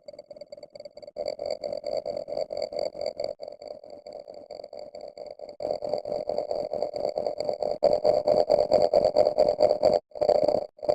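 Electronic sound effect: a buzzy tone pulsing many times a second. It grows louder in steps, about a second in, past the middle and near the end, then breaks into separate bursts with short silences between them.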